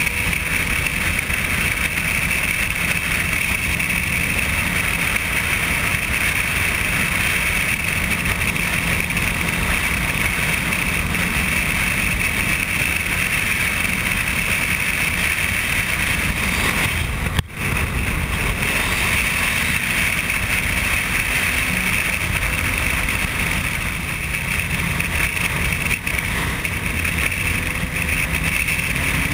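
Sport motorcycle cruising at highway speed, heard from the rider's position: a steady rush of wind and engine noise. There is a brief dropout about 17 seconds in.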